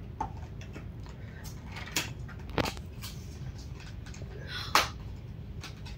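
Cardboard phone box and its packaging being handled and opened by hand: scattered rustles and small knocks, the sharpest one near the end.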